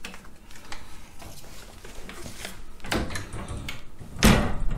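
Wooden gun-cabinet door being opened and handled: light clicks and knocks of wood, with a louder knock a little after four seconds.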